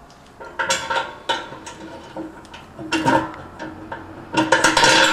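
Metal antenna mounting hardware clinking and ringing as a bracket is fastened to a steel ring with screws, in three bouts of knocks, the loudest near the end.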